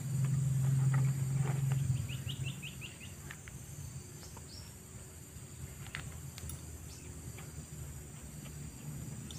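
Clicks and knocks from a wire bird-trap cage being handled, over steady high insect buzzing. A low steady hum fades out about two seconds in, and a quick run of about seven short rising chirps follows.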